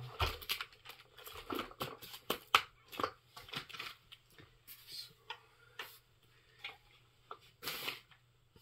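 Irregular rustling, light taps and clicks of things being handled by hand, most frequent in the first few seconds, then sparser, with a longer rustle near the end.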